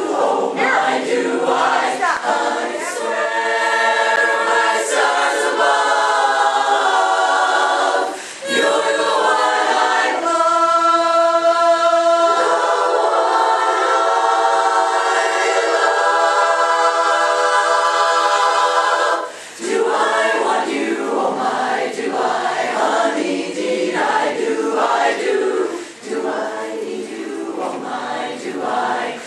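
Women's chorus singing a cappella in harmony, holding one long chord for several seconds midway, with brief pauses just before and after it.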